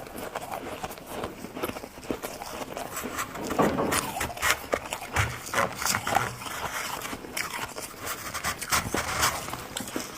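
Close-up crunching of white freezer frost being bitten and chewed: a dense run of sharp crackles, loudest about four seconds in.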